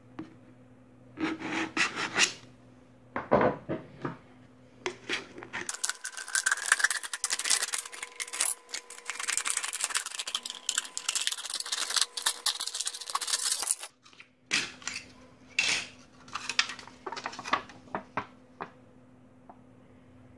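An empty aluminium beer can being cut open: a knife blade pierces and scrapes the thin can wall in a few short bursts, then scissors cut through the aluminium in a long, continuous run of crinkling, crackling snips lasting about eight seconds. This is followed by a handful of separate snips and crackles of the sheet metal.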